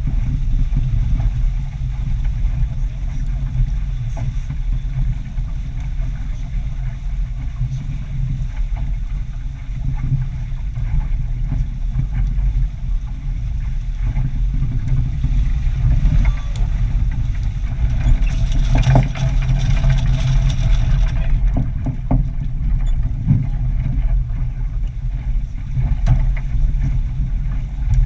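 Wind buffeting a small sailboat's onboard action camera microphone as the boat sails fast, with water rushing past the hull. A louder hiss of rushing water and spray builds a little past the middle and stops abruptly a few seconds later.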